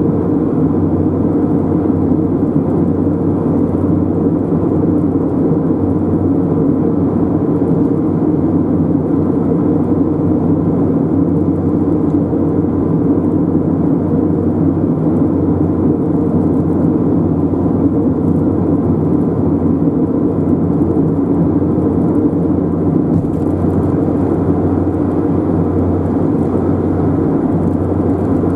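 Steady driving noise of a car on the road: a constant low drone of tyre and engine noise with a faint steady hum, unchanging throughout.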